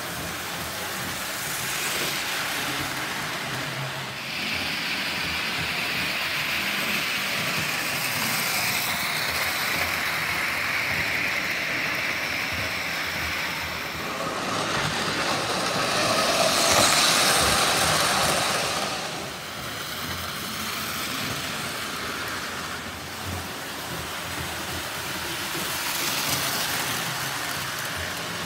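Lionel 2026 model steam locomotive and its passenger cars running around a three-rail O gauge layout: a steady rolling rumble of wheels on track and the locomotive's motor. It swells loudest about halfway through as the train passes close by.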